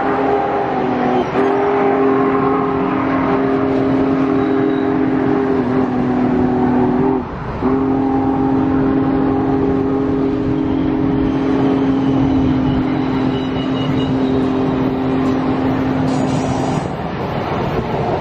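Union Pacific streamlined passenger cars rolling past on the curve: a steady rumble of wheels on rail with a loud two-note drone that breaks briefly about seven seconds in and stops near the end.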